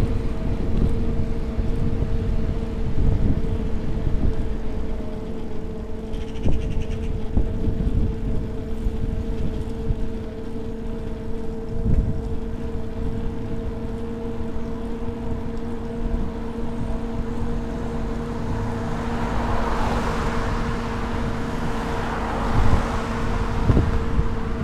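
Electric bike's hub motor whining at a steady pitch while riding, over a low rumble of wind on the microphone and road noise. Near the end a car passing close by adds a swelling hiss that fades again.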